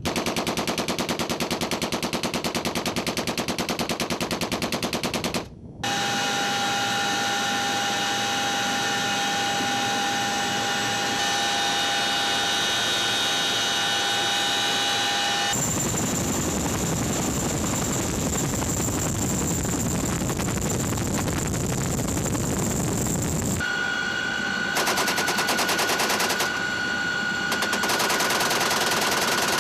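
M60 machine guns firing 7.62 mm rounds in long, fast, continuous bursts, the shots coming in rapid even succession. The fire breaks off briefly about five and a half seconds in, and its sound changes abruptly several times as one stretch of firing gives way to another.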